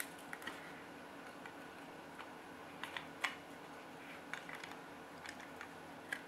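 Faint, scattered clicks and taps of the Tamiya MFC-01 unit and its plugged-in wiring harnesses being handled and fitted into a chrome box housing, the sharpest click about three seconds in.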